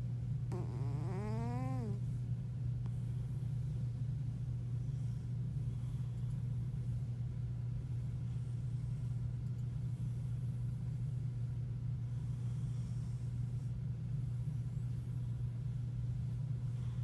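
A cat meows once about half a second in, one call that rises and then falls in pitch, over a steady low hum that runs throughout.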